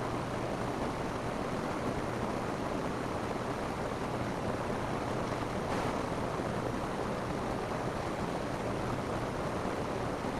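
Steady rain falling on a roof: an even, unbroken hiss of drops, with a faint steady low hum beneath.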